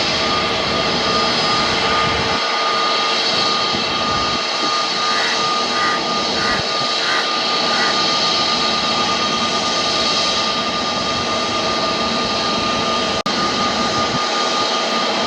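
Boeing 737-800 freighter's CFM56 jet engines running with a steady rushing noise and a constant high whine, with a brief dropout near the end.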